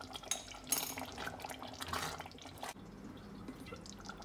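Silicone spatula stirring thick tomato-based curry sauce in a stainless steel pot: irregular wet stirring and light scraping that stops after about two and a half seconds, leaving a faint steady hum.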